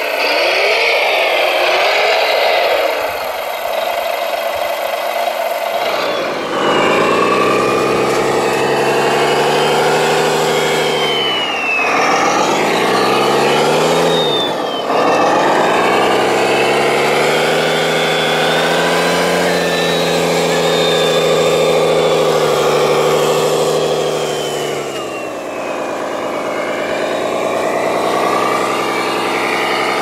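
For the first few seconds an RC wheel loader's drive works through gravel; from about six seconds the RC Kirovets K-700 6x6 model truck's simulated diesel engine sound revs, drops and picks up again twice, then runs steadily while the truck climbs the gravel.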